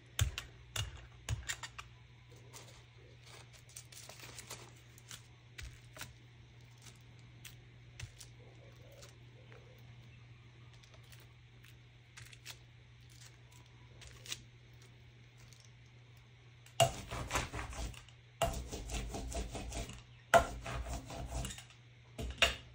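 Scattered light taps and clicks of art materials being handled over a faint steady hum, then, about three quarters of the way through, several loud rasping strokes of a brayer rolling acrylic paint out.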